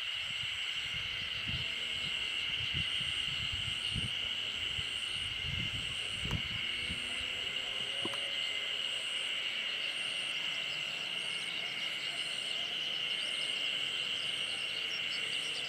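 Outdoor ambience dominated by a steady insect chorus, with a faint high chirp repeating about once a second. Low rumbling thumps come and go during the first half.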